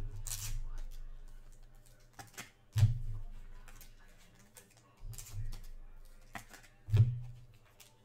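Trading cards being handled on a table: sharp taps and clicks about every two seconds as cards are flipped and set down, with soft rustling between them.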